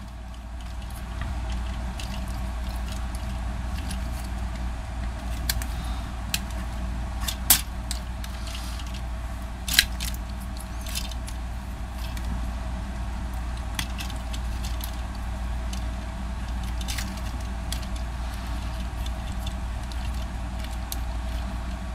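Scattered light clicks and taps of the plastic parts of a Transformers Ectotron figure being handled and fitted together as a hose is plugged back in, over a steady low background hum.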